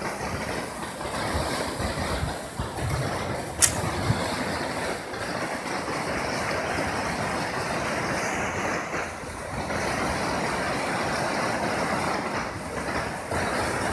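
Muddy floodwater of a swollen river rushing past with a steady, unbroken noise, with one sharp click a little under four seconds in.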